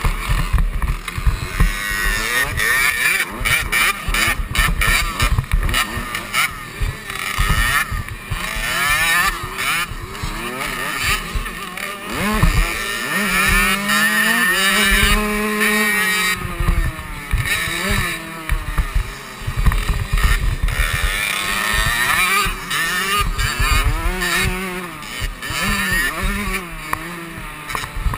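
KTM 65 single-cylinder two-stroke motocross engine revving up and down hard through the gears, with one long rising and falling pull about halfway through, heard from the rider's helmet with wind buffeting the microphone.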